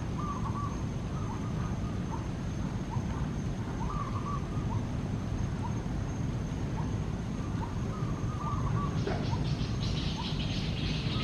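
Outdoor ambience: a steady low rumble with a constant thin high whine, and short chirping calls repeated roughly once a second. A rapid pulsing buzz joins about nine seconds in.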